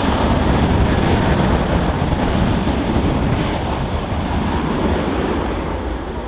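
Boeing 777-300ER jet engines heard as the airliner lands: a loud, steady rush of noise that eases slightly near the end.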